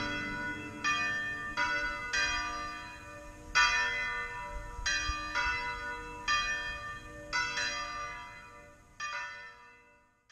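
Church bells ringing in irregular strikes, each stroke ringing on over the last, the whole fading away to silence at the end.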